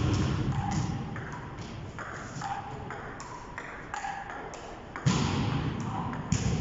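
Table tennis rally: the ping-pong ball clicks off the bats and the table in quick, irregular succession, some bounces ringing with a short ping. A dull low rumble swells at the start and again about five seconds in.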